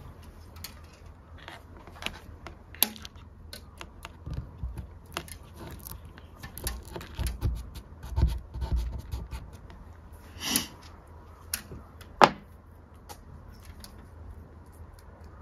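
Small handling noises as digital thermometers and their thin probe wires are handled and taped to a door frame: scattered clicks, taps and rustles, with a few low bumps around the middle and a sharp click about twelve seconds in.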